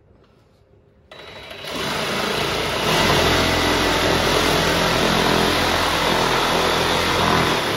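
Electric saw running and cutting through a deer's leg bone to take off the shank, leaving bone dust. It starts about a second in, builds over the next two seconds, then runs loud and steady.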